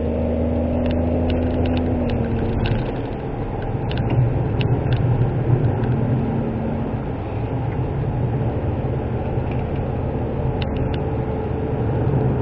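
Suzuki Wagon R (MH23S) with its 660 cc three-cylinder engine, heard from inside the cabin while driving a winding climb: a steady mix of engine and road noise. The engine note holds for about two seconds, then eases, and a few faint light clicks come through.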